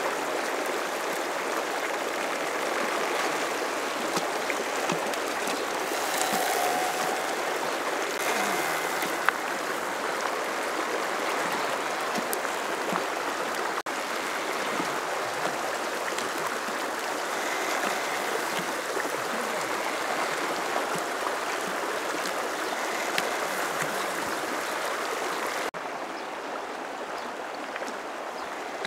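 Shallow mountain stream rushing over rocks: a steady, even rush of flowing water.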